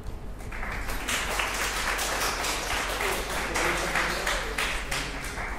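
Audience applauding: many hands clapping together, starting about half a second in and dying down near the end.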